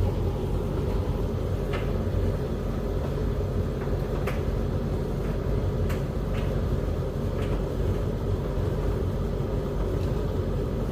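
Beko WS832425s washing machine running mid-wash: a steady low rumble and hum from the turning drum, with a few faint knocks every second or two.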